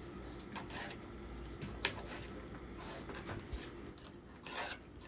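Faint kitchen handling: a few light clicks and rustles of food and a dish being moved, with one sharper click about two seconds in and a small cluster of rustles near the end.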